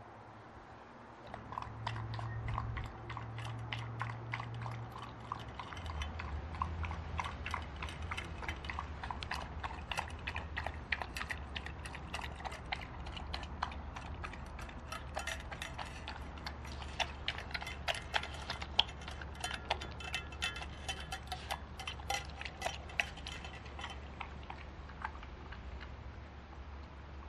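A corgi eating raw food from a handheld stainless steel bowl: quick, wet chewing and licking with sharp clicks as its teeth knock against the metal bowl. The clicks thin out near the end.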